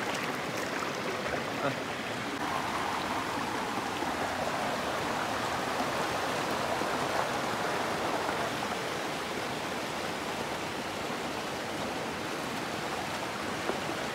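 Small forest stream cascading over rocks: a steady rush of water, a little fuller for several seconds in the middle.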